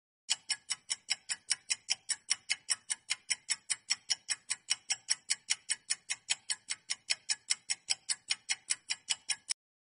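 Countdown-timer ticking sound effect: quick, even clock-like ticks, roughly four to five a second, that start just after the beginning and stop abruptly shortly before the end.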